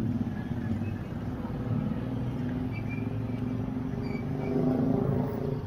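Street traffic: motor vehicle engines running, a little louder for a moment about five seconds in.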